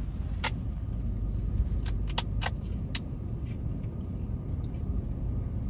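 Steady low rumble inside a car, with a handful of light clicks, several close together about two to three seconds in.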